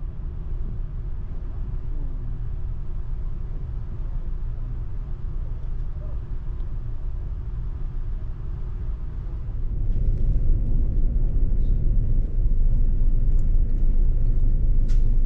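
Steady low rumble of a large ferry's engines and hull under way, with a faint hum; it gets louder about ten seconds in. A few light clicks sound over it near the end.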